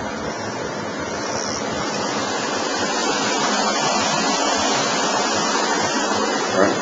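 Steady rushing of running water, an even hiss with no breaks that grows a little louder over the first two seconds.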